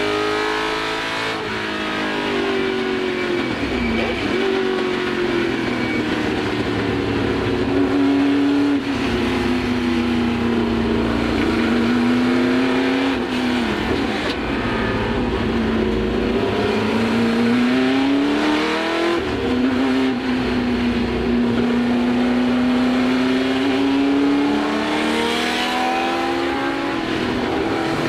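Ford GT40 Mk1's small-block Ford V8 racing engine, heard from inside the cockpit at full race pace. The engine note climbs and falls again and again, with sharp breaks as the driver lifts and changes gear.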